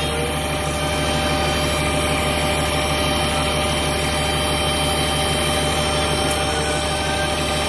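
Fire engine's diesel engine idling close by: a loud, steady low rumble with an even pulse.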